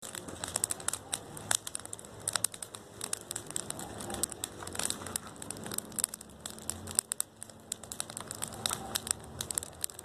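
Wood campfire of branches crackling, with many irregular sharp pops and snaps.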